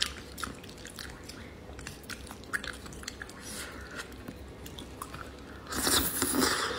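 Eating noodles: scattered soft wet chewing clicks, then near the end a loud, noisy slurp as a mouthful of noodles is sucked in.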